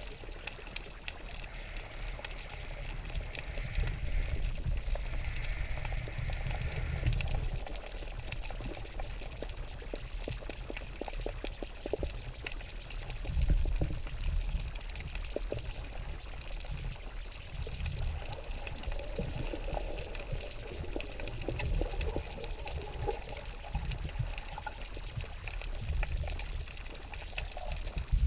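Underwater sound picked up by a submerged camera: a low, uneven rumble of moving water that swells and fades, with many faint scattered clicks.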